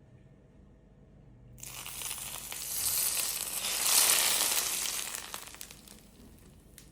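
Hot fat sizzling in a kitchen. It starts suddenly about a second and a half in, swells to a peak and dies away within about four seconds.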